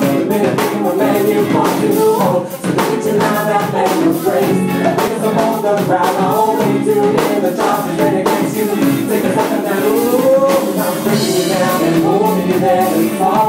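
Live rock band playing a song, with a male and a female singer over drums and guitar.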